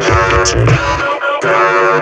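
Electronic music: a drum-machine kick pattern thumping quickly under sustained synth tones. The kick drops out about a second in, leaving the held synth tones.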